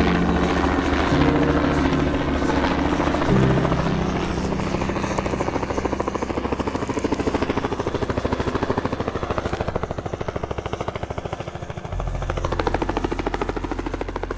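Small single-rotor helicopter flying low overhead, its rotor blades chopping in a fast, even beat, with held music chords underneath in the first few seconds and a low steady drone near the end.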